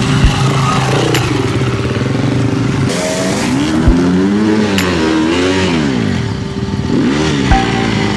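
Off-road dirt bike engines running and revving, the pitch rising and falling several times in the middle, with a few sharp clacks.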